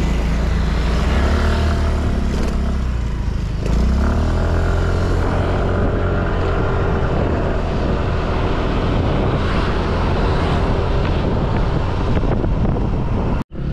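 Motor scooter's small engine running steadily while riding, under loud rushing wind noise; the engine note rises about four seconds in as it picks up speed. The sound breaks off abruptly near the end.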